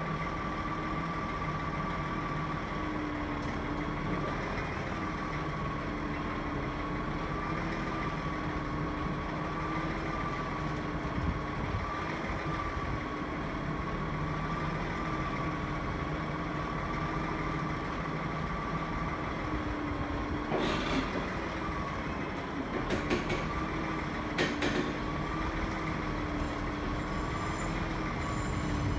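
Heavy diesel engine running steadily at idle during the handling of a Mk3 railway coach for road loading, with a high, slowly wavering whine over it. A few sharp metallic clanks come about two-thirds of the way through.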